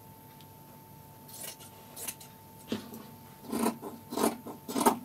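Fabric scissors cutting through furry fabric: about six separate snips, starting a second or so in and getting louder toward the end.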